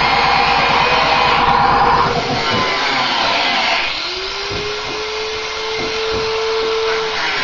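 Electric angle grinder grinding the steel of a car body for about the first half, a dense grinding noise. It is then lifted off the metal and runs free with a steady whine that rises briefly at first, with a few light knocks.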